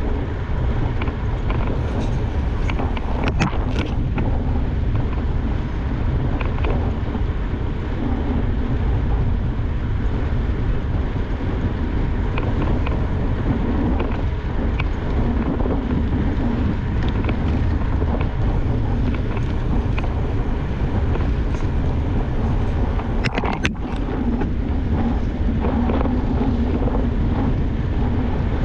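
Wind rushing over a GoPro Hero 8 Black's microphone while a mountain bike rolls along asphalt: a steady low rumble of wind and tyres. A few sharp ticks from the bike stand out, a cluster a few seconds in and another near the end.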